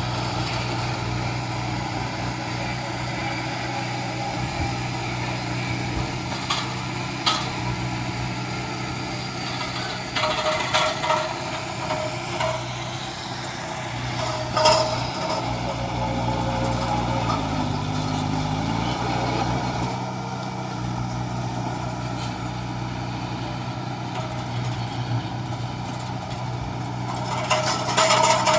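Heavy diesel construction machinery running steadily, with scattered metal clanks and knocks. The engine note dips and comes back up briefly about two-thirds of the way through.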